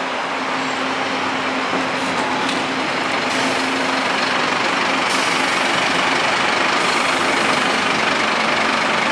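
City bus engine running close by as the bus moves slowly past: a steady drone with a low hum that fades out a few seconds in.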